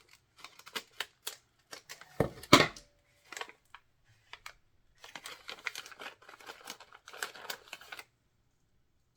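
Snack bag of dry roasted cashews being handled and torn open: a string of crinkles and clicks, the loudest a sharp rip about two and a half seconds in, then a few seconds of dense crinkling before it goes quiet.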